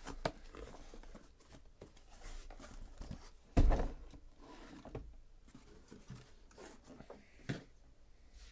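Cardboard shipping case being opened and unpacked by hand: cardboard flaps rustling, one loud thump about three and a half seconds in, and a few lighter knocks as the card boxes inside are handled and stacked.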